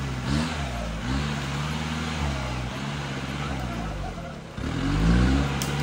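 A 4x4 jeep's engine revving up and down repeatedly as it works through deep mud. The engine sags briefly just after four seconds, then revs up hard about five seconds in.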